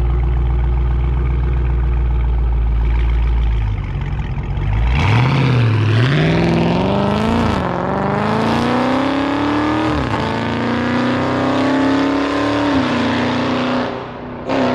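Dodge Scat Pack's 392 Hemi V8 with a mid-muffler delete, catless, resonators kept, idling and then pulling away hard. The exhaust note climbs in pitch, drops briefly at upshifts about 6, 7.5 and 10 seconds in, then eases off and fades near the end.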